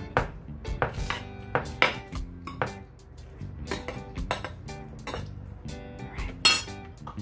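Kitchen utensils and dishes clinking and knocking while a dish is assembled, over background music. The loudest event is one sharp clatter about six and a half seconds in.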